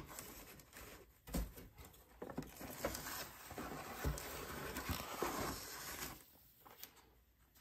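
Cardboard packaging and a blister-carded action figure being handled: a cardboard divider pushed aside and the card pulled out of a cardboard tray, rustling and scraping with a couple of soft knocks, dying down near the end.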